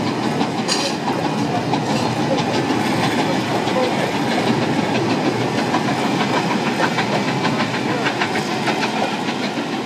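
Passenger coaches rolling past on the track, their wheels giving a steady run of clicks and clacks over the rail joints.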